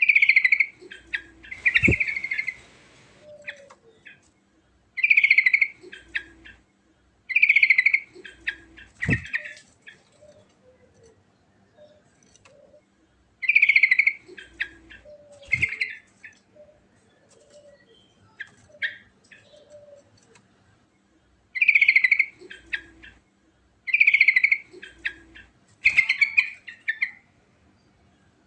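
Yellow-vented bulbul (trucukan) singing: short, loud warbled phrases repeated every couple of seconds in groups, with pauses between. A few sharp clicks fall among the phrases.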